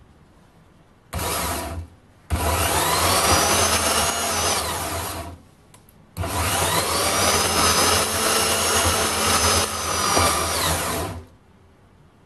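VEVOR 1100-watt variable-speed portable band saw cutting a steel section in a vise, in three trigger pulls: a brief run about a second in, then runs of about three and five seconds. The motor's whine rises at the start of each run and stops sharply when the trigger is released.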